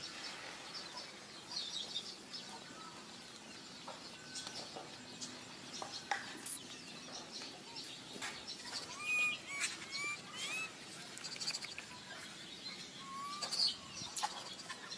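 Baby long-tailed macaque giving a series of short, high, upward-curving squeaks over the second half, some doubled in quick pairs, with scattered light clicks.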